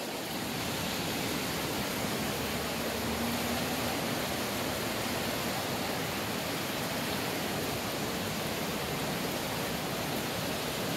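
Rain-swollen river in flood rushing past, a steady, even rush of fast water.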